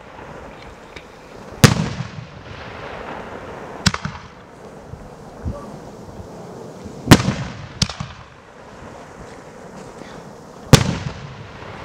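A multi-shot firework cake (salute battery) firing: five sharp bangs a second or few apart, the fourth close behind the third, each followed by a fading hiss and rumble.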